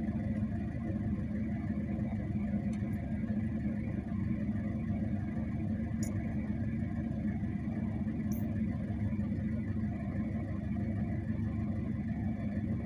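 Steady low rumble of a motor vehicle engine running, even in level throughout, with a few faint ticks.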